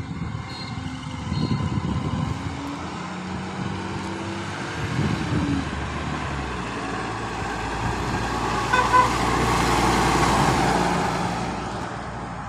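Garbage truck's diesel engine running as the truck drives closer and passes by, growing louder toward its peak near the end, with a short horn toot about nine seconds in.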